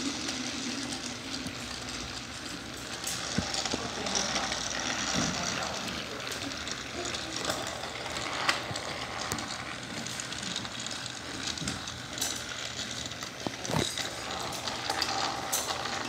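Battery-powered TrackMaster toy train engines running on plastic track: a steady noisy motor and wheel hum, broken by a few sharp clicks and knocks.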